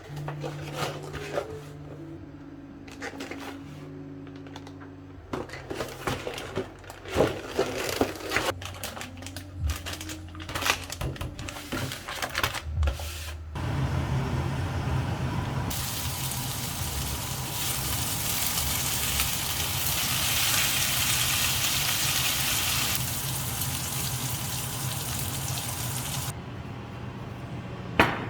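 Scattered clinks and knocks of tableware being handled, then from about halfway a kitchen tap running steadily into a sink until shortly before the end.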